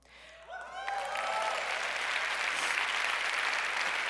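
Audience applauding: a few cheering voices rise about half a second in, then the whole hall breaks into steady clapping.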